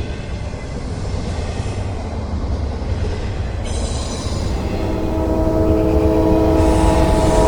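Train approaching, its low rumble growing louder. About five seconds in, the locomotive's multi-chime air horn sounds a steady chord that holds.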